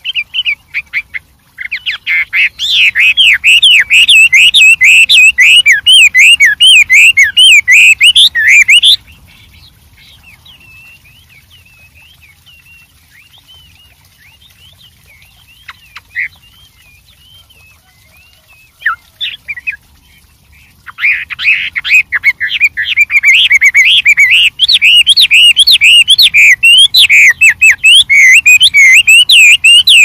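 Chinese hwamei (melodious laughing thrush) singing a loud, rapid, richly varied whistled song. A quieter middle stretch of soft, scattered notes comes before the full song starts up again.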